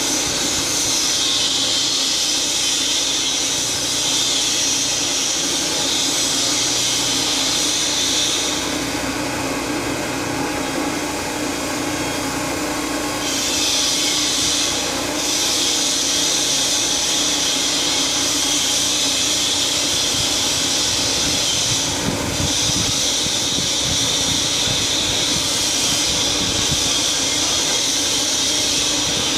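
Steady mechanical hiss over a constant hum. The hiss cuts out for several seconds about a third of the way through, then dips briefly twice more.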